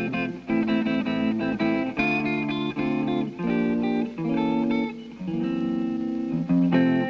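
Semi-hollow Gibson electric guitar played: rhythmic chord strokes, some chords left to ring, then quicker picked notes near the end.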